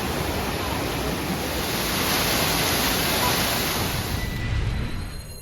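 Steady rush of a waterfall's falling water, which cuts off about four seconds in.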